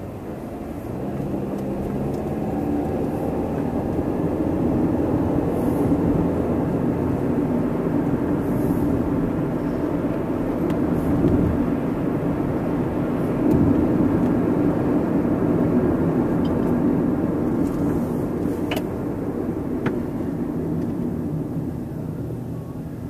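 Car engine and road noise heard from inside a moving Chevy Cobalt, swelling over the first few seconds as it gathers speed, holding steady, and easing off near the end.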